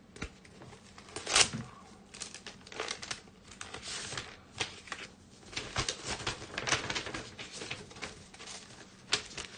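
Yu-Gi-Oh trading cards in plastic sleeves and packaging being handled and sorted: an irregular string of crinkles, rustles and light taps, with one louder crinkle about a second and a half in.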